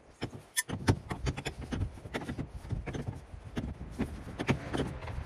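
Steel wrench clinking and tapping on metal control-cable fittings on an aluminum boat's gunwale, loosening the old steering controls: a run of irregular sharp clicks and knocks.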